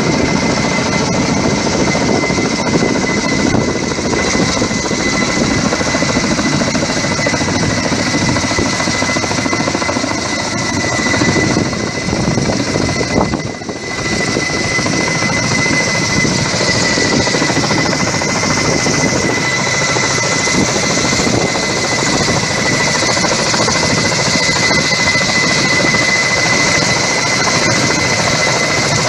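Kamov Ka-32 firefighting helicopter flying close by: its coaxial rotors and turbine engines make a loud, steady noise with a steady high whine on top. The sound briefly drops about halfway through.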